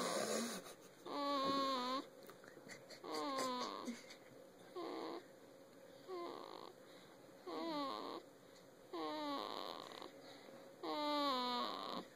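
Newborn baby snoring in its sleep. About eight short pitched sounds, each falling in pitch, come one with each breath roughly every second and a half.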